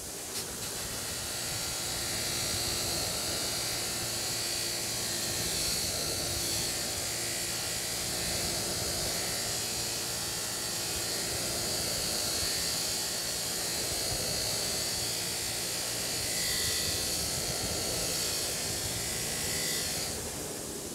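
Bench grinder running with a wire wheel brushing rust off the steel handle of an Estwing hammer, a steady scratchy whir. The brushing eases off near the end, leaving the grinder motor running.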